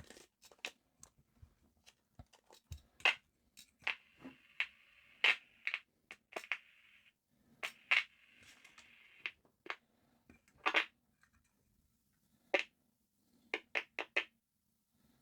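Sharp clicks and crackles from a vintage Lakeland handheld CB radio, with stretches of hiss lasting a second or more from its small speaker, now working again after repair. A faint steady hum sits underneath.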